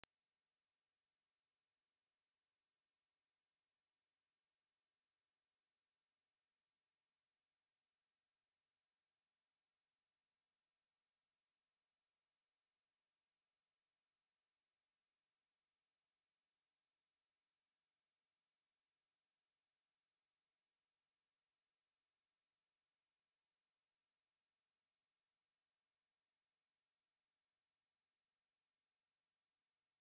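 A single steady 10458 Hz sine-wave test tone, very high-pitched and unchanging, with nothing else.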